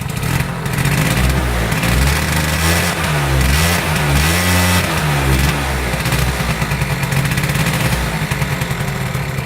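Honda Razz scooter's small two-stroke engine, fitted with a new big-bore kit still being broken in, revved up and down several times on the throttle, then dropping back to idle.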